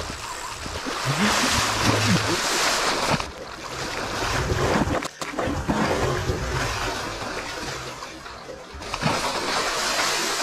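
Heavy splashing and churning water as a large alligator gar thrashes in shallow water on a hook. The splashing eases off in the middle and comes back loud again near the end.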